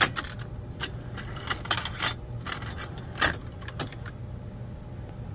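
The Invert-O-Matic mechanism of a newly repaired Akai GXC-65D cassette deck turning the cassette over: a quick run of mechanical clicks and clunks for about four seconds, the loudest about three seconds in. A steady low hum runs underneath and is all that is left near the end.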